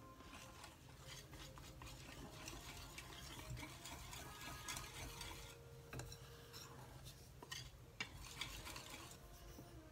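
Wire whisk stirring cassava-flour batter in a glass bowl: faint, irregular scraping and ticking of the wires against the glass.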